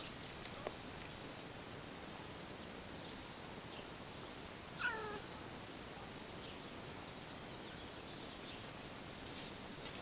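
A domestic cat gives one short meow about halfway through, falling in pitch.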